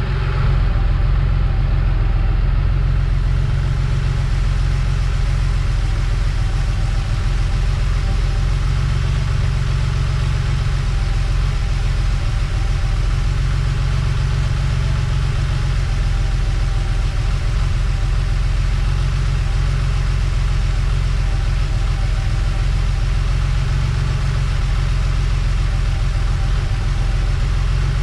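1987 Porsche 911 Carrera's air-cooled flat-six engine running steadily, a low even rumble with no revving.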